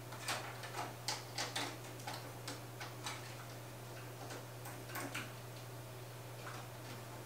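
Light clicks and ticks of fan and pump cables and their plastic connectors being handled and routed, a dozen or so close together before things go quieter about five seconds in, over a steady low hum.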